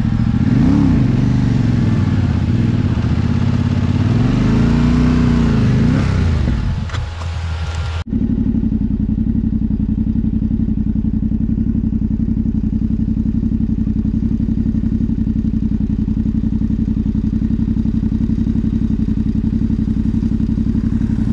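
Motorcycle engine revved up and down, its pitch rising and falling twice. After a sudden cut about eight seconds in, a motorcycle engine idles steadily and evenly close by.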